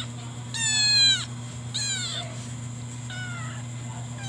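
White kitten meowing three times, high-pitched calls that each fall in pitch; the first is the loudest.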